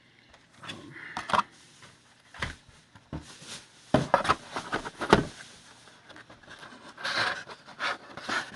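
Handling noise from unboxing a Ring alarm kit: irregular scraping, rubbing and knocks as the plastic keypad and base station are pulled from their molded packaging tray and turned over in the hands.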